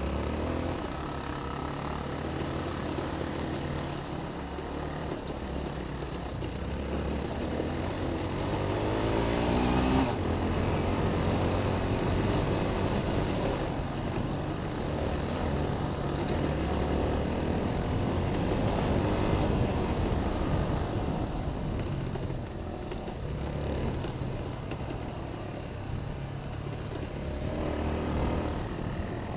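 Honda XR250 single-cylinder four-stroke dirt bike engine running on a trail ride. The revs rise and fall, with clear climbs about a third of the way in and again near the end.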